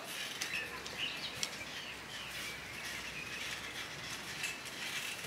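Garden hoe chopping into loose soil, a few faint scattered knocks, over outdoor ambience with faint bird chirps.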